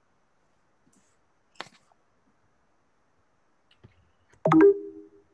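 Computer mouse clicks picked up by a laptop microphone: one sharp click about one and a half seconds in, then a louder cluster of clicks near the end, followed by a short low tone.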